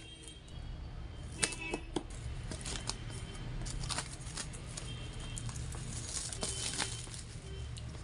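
Clear plastic shrink-wrap being slit with a cutter and torn off a cardboard box, crinkling and crackling with many sharp snaps.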